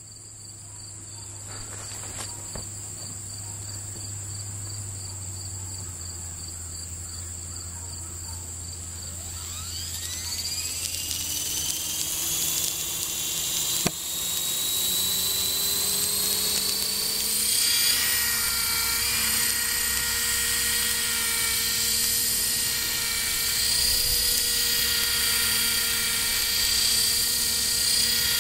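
Radio-controlled model helicopter spooling up: after a faint steady hum, its motor and rotor whine climbs in pitch from about a third of the way in, then settles into a steady, louder high whine as the helicopter lifts off near the end. A single sharp click about halfway through.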